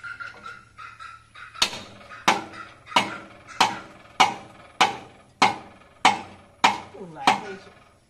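Steady hammer blows on metal at a power tiller's wheel axle hub, ten strikes about 0.6 s apart, each ringing briefly. They start about a second and a half in and stop shortly before the end.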